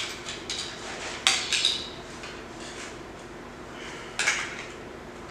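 Metal clinks and taps of a grinder's wheel being changed: a few light ticks, then a louder pair of clinks and one more clink later on.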